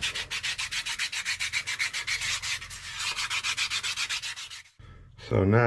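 An abrasive stone rubbed rapidly back and forth on the cast-iron frog of a hand plane, in quick even scraping strokes about eight a second, stopping near the end. The frog face is being flattened so the iron and chip breaker sit flush.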